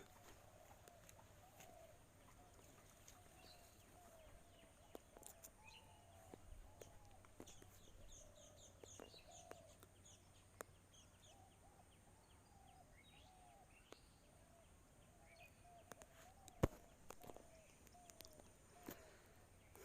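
Faint birds calling in the background, a long run of short repeated calls with higher chirps in the middle stretch. Scattered light clicks, one sharp click about three-quarters of the way through.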